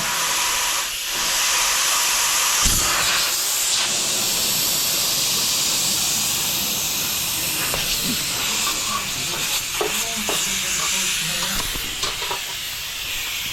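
A steady, loud hiss with a few light knocks.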